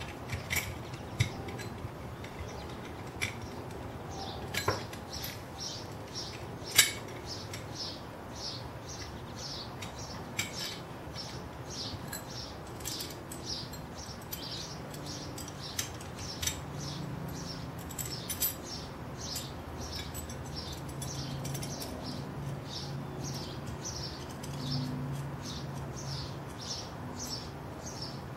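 Small steel parts of a metal rope bracket clinking as the plate and nuts are fitted onto its U-bolts by hand, with a few sharper clinks, the loudest about seven seconds in. Behind them runs a long series of light, regular high ticks, two or three a second, as the nuts are turned onto the U-bolt threads.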